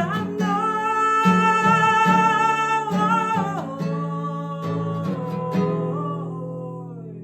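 Acoustic guitar with a woman's voice holding one long sung note, which slides down about three and a half seconds in. The music fades toward the end.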